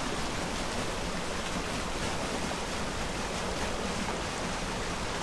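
Steady rushing of water flowing into an old stone canal lock, an even noise with no breaks.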